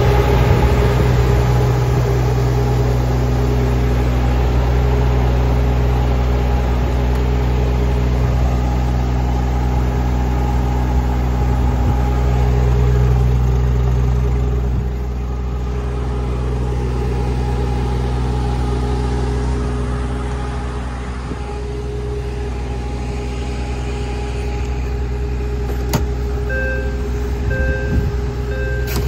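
Scania S500's V8 diesel engine idling steadily, dropping a little in level about halfway. Near the end a short electronic beep sounds three times, about once a second.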